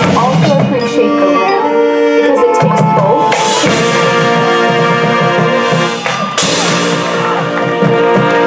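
High school marching band playing: brass holding sustained chords over drums and pit percussion, with two bright crashes about three and six seconds in.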